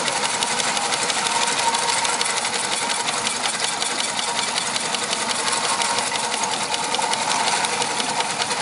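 Third-scale Case steam traction engine running while driving, with a rapid, even chuffing and clatter from its exhaust and motion and a thin steady tone above it. The governor holds the engine's speed as it carries the load.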